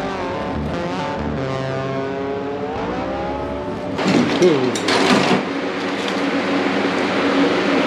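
Background music with sustained notes. About four seconds in there is a brief clatter, after which a box fan fitted with a furnace filter runs with a steady whir and hum.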